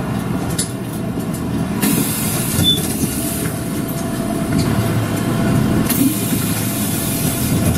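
Iyotetsu route bus standing at a stop with its diesel engine idling, heard from inside the cabin. Two short bursts of compressed-air hiss from the bus's air system come about two seconds in and again about six seconds in.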